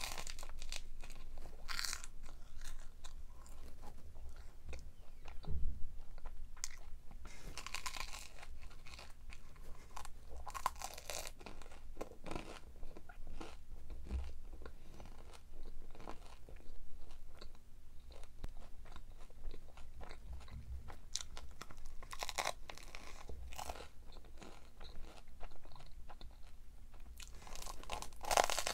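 A person biting and chewing crunchy food close to the microphone. Small clicks and chewing sounds run throughout, and louder crisp crunches come every few seconds.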